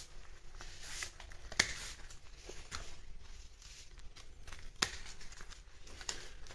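Bypass pruning secateurs snipping into a hollow, browned tamarillo stem: a series of sharp clicks and snips, the two loudest about a second and a half in and near five seconds in.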